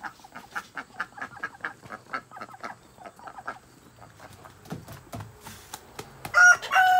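Chickens clucking in a quick series of short calls, then louder, longer calls near the end.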